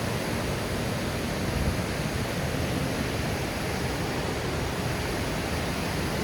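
Steady rushing of fast, powerful creek water pouring over and around rocks, an even, unbroken noise.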